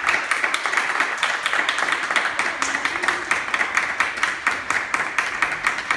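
A small group of people applauding, with dense, steady hand clapping.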